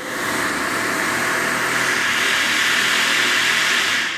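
Electric 230 V piston actuator of a stainless-steel walk-on floor skylight running, a steady mechanical whirr as it lifts the glazed lid open; the whirr starts suddenly and fades away near the end.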